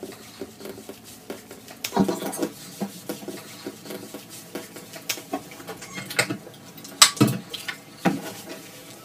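Hands scrubbing a wet dog's fur in a utility sink, a busy rustling broken by scattered sharp knocks and clicks, the loudest about seven seconds in.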